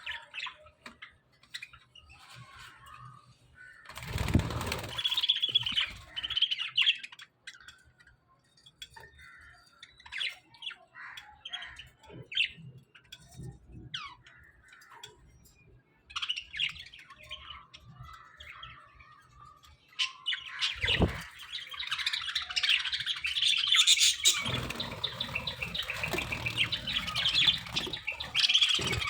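A small colony of budgerigars chirping and chattering, with short calls scattered throughout. There is a loud burst of dense chirping with a rush of wing flapping about four seconds in, and a long louder stretch of massed chattering from about twenty seconds to the end.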